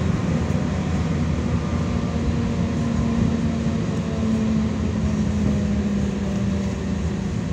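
Interior of a BKM 60102 tram running steadily along the line: continuous rumble of the wheels on the rails, with a steady low hum from the car.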